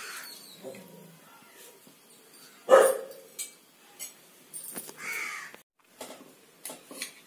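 Two animal calls: a loud, short one about three seconds in and a second one around five seconds in, with a few light clicks between them.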